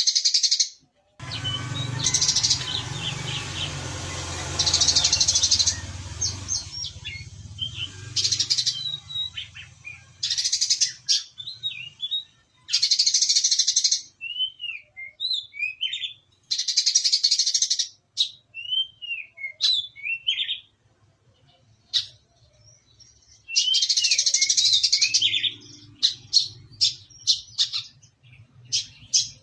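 Brown-throated sunbird (kolibri kelapa) singing in repeated bursts of rapid, high chirping a second or two long, broken by short slurred whistled notes. The chattering phrases are its imitation of tree sparrow calls ('gerejaan').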